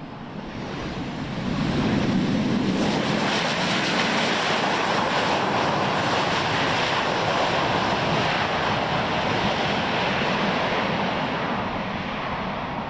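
Twin CFM56 turbofan engines of a Boeing P-8I Poseidon running at high power as the jet rolls along the runway: a loud, steady jet rush that builds about a second and a half in and eases slightly near the end.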